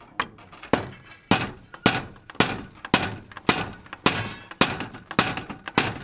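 Hammer striking the hand-forged iron ring handle's fitting on a wooden door to fix it in place: about eleven even blows, a little under two a second.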